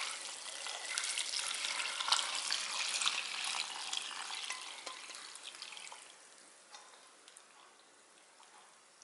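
Soy-sauce brine poured in a thick stream onto blanched pepper leaves in a glass dish, a crackling splash that tapers off over about five or six seconds as the pour ends. A few faint clicks follow as the soaked leaves are pressed down.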